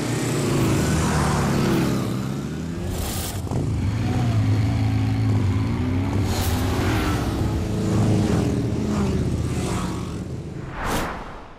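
Several motorcycle engines running hard together, revving up and down as they accelerate, with three sharp whooshes as they sweep past. The engine sound dies away at the end.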